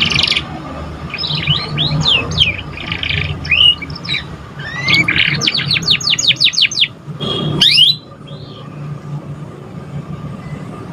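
Domestic canary singing a varied, rapid song of chirps and whistled sweeps, including a fast trill of descending notes, before falling mostly quiet for the last few seconds.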